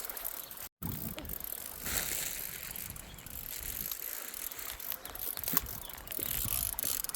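Fishing reel being cranked, its mechanism clicking lightly, as a carp is reeled in.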